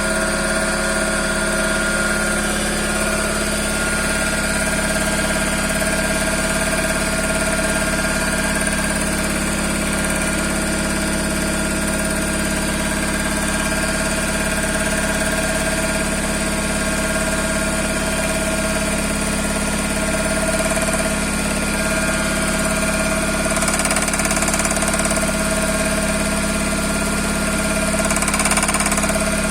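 Toyota Corolla 5E-FE 1.5-litre four-cylinder engine running steadily at idle, a little louder near the end, with the engine knock it is being recorded for.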